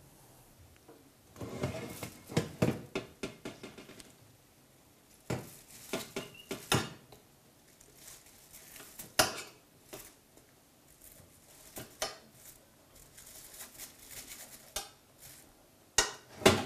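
A metal fork clicking and scraping against a baking tray as whole baked eggplants on foil are turned over in the oven, in irregular knocks and short scrapes, the loudest near the end.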